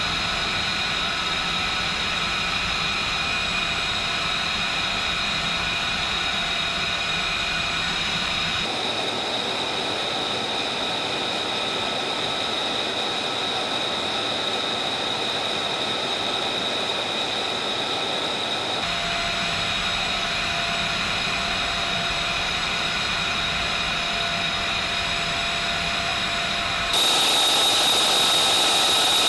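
F-35B's Pratt & Whitney F135 jet engine running during a hot reload: a steady rushing noise with several high whining tones. Its level and tone jump abruptly three times, about a third of the way in, two-thirds of the way in, and near the end, where it gets louder.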